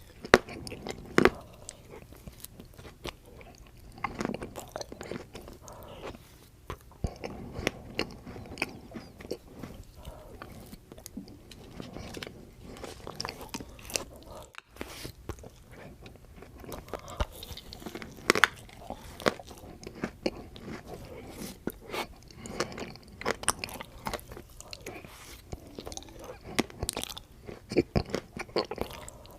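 Close-miked biting and chewing of a Dairy Queen Choco Brownie Extreme Blizzard, soft-serve ice cream mixed with brownie pieces, with irregular sharp mouth clicks.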